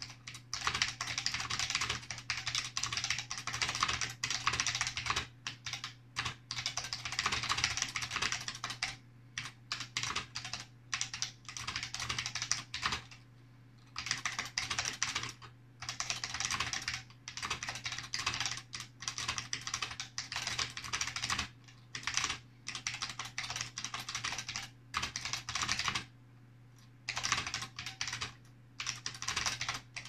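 Fast typing on an Elektronika MS 7004, a Soviet capacitive buckling-spring keyboard modelled on the IBM Model F: quick runs of keystrokes, each key sounding a little different from the next because the switches are inconsistent. The runs break off briefly about halfway through and again near the end.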